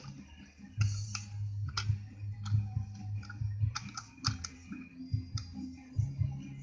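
Light plastic clicks and rattles as toy train carriages are handled and pushed along plastic track, with a low hum coming and going.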